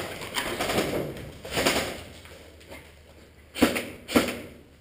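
Scuffling footsteps and gear rustling over a rubble-strewn floor. Near the end come two sharp knocks about half a second apart.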